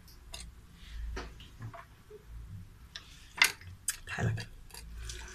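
Scattered small clicks and taps from hands handling a skinned rabbit carcass on a plate, a few sharper ones near the end.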